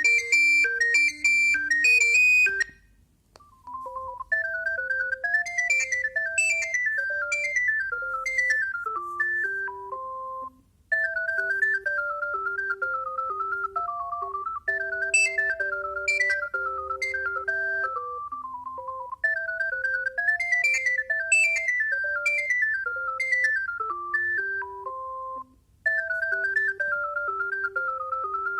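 Alcatel One Touch 320 mobile phone playing its built-in ringtones: a bright, high-pitched tone ends about two seconds in, and after a short pause a new tune starts, a melody over a bass line that loops about every seven seconds with brief gaps.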